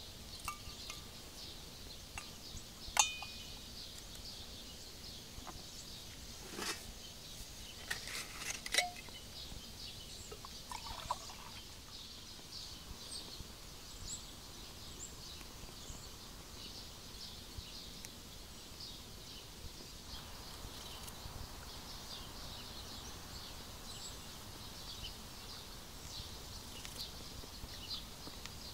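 Forest ambience with small birds chirping, and a single metallic clink with a brief ring about three seconds in. A few softer knocks follow over the next several seconds.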